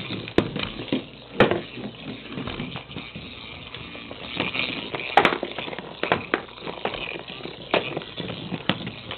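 Motorized toy ball rolling and knocking across a tile floor while ferrets scamper after it, with irregular clatter and a few sharp knocks.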